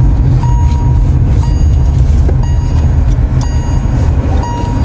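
Car's interior warning chime beeping about once a second, each beep short and at one steady pitch, over the low rumble of the car. It comes as the driver stops to buckle her seatbelt while in reverse, so it is the seatbelt reminder or the reverse-gear warning.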